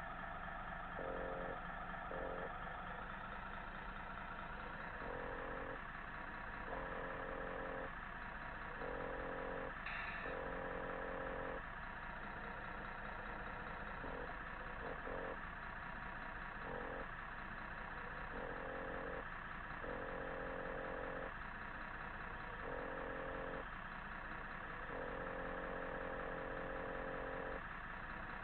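Recorded diesel truck engine sound from a remote-control Scania truck's onboard sound module, running steadily while part of the sound cuts in and out every second or two as the truck is driven. A short sharp sound comes about ten seconds in.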